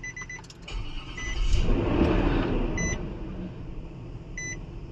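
Infiniti QX56's 5.6-litre V8 running. Its noise swells for a second or two about 1.5 s in, then settles back to idle. The vehicle's warning chime beeps about every second and a half. The engine is running normally now that the loose bank 2 camshaft position sensor behind the P0345 long-crank fault has been tightened.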